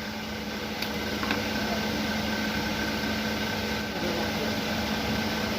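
Steady room background hum with a constant low tone and a faint higher whine, like a fan or air conditioner running, with a couple of faint light clicks about a second in.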